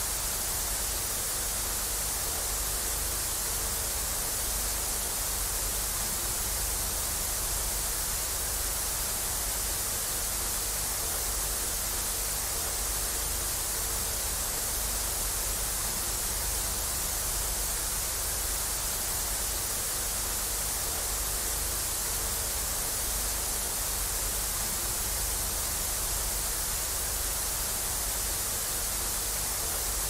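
Television static from a blank channel: a steady, unbroken hiss, strongest in the high treble, with a low rumble underneath.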